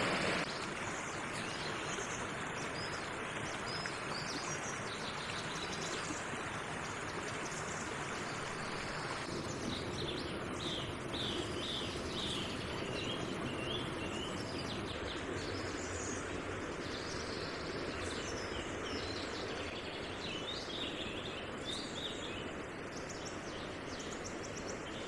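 Fast-flowing brook rushing over rocks, a steady wash of water noise, with small birds chirping and singing over it, most busily from about ten seconds in.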